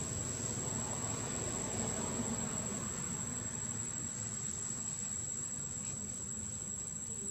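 Insects droning with one steady high-pitched whine, over a low rumbling background noise.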